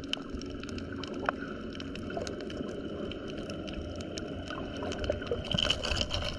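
Muffled underwater sound picked up by a camera held beneath the surface: a steady low rumble of water with many scattered sharp clicks and crackles, growing louder and noisier near the end.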